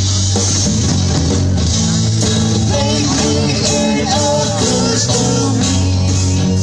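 Rock music with guitars and a steady bass line, in an instrumental stretch between sung lines.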